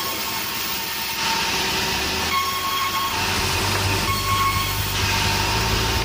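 Band sawmill headrig running, its blade cutting dama hitam timber: a steady mechanical saw noise with faint whining tones. A low hum grows stronger about four seconds in.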